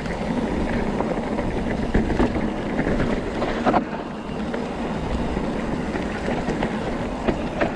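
Mountain bike rolling down a dirt trail: a steady rumble of tyres over the ground mixed with wind on the microphone, with a couple of sharp knocks as the bike rattles over bumps, about two seconds in and again a little later.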